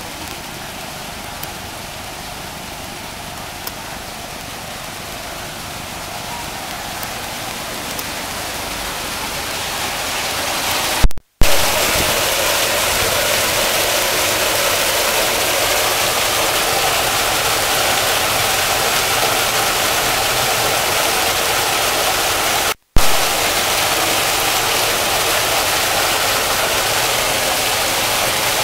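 Water pouring down a waterfall, heard from the grotto behind the falling curtain: a steady rushing hiss that grows louder over the first ten seconds, then holds loud and even. It breaks off twice in short clicks and dropouts where the recording is cut.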